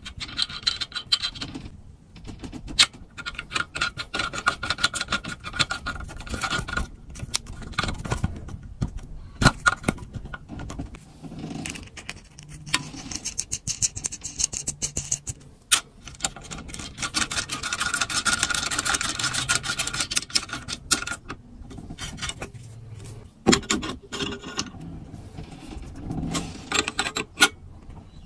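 Zinc-plated steel nuts and bolts being handled and screwed together: many sharp metal clicks and clinks as the parts touch, with stretches of quick, fine scraping as the threads spin.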